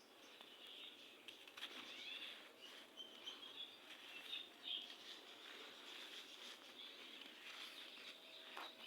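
Gritty red sand crumbling softly: faint, irregular crackling and small ticks of grains breaking and trickling, between louder crumbles.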